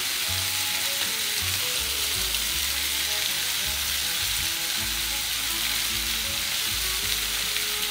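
Chicken thighs sizzling steadily as they sear skin-side down in a hot steel paella pan over a high flame, fat spattering as they begin to brown. Soft background music plays underneath.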